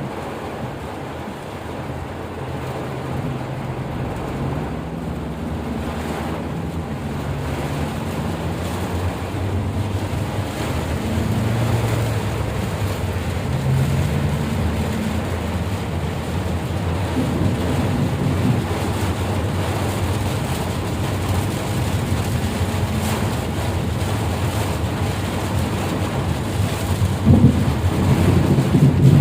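Vehicle driving in heavy rain: a low engine hum that rises and falls in pitch under a steady rushing noise of rain and wet road.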